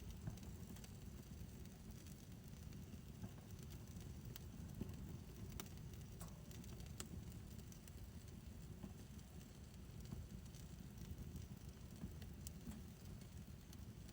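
Fire pit burning faintly: a low steady rumble with scattered sharp crackles and pops.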